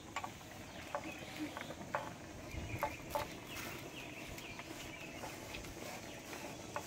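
Light knocks, taps and scrapes as hand-pounded rice flour is tipped and scooped out of a wooden mortar onto a winnowing tray. Faint bird calls sound in the background.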